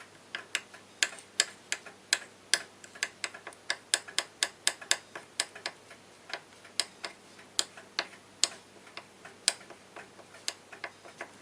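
Irregular light clicks and taps of a small tool against a hard surface as diamondite powder is stirred into oil to make a polishing paste.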